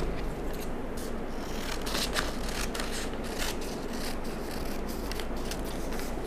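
Large dressmaking shears cutting through pattern paper: a run of irregular crisp snips with the paper rustling.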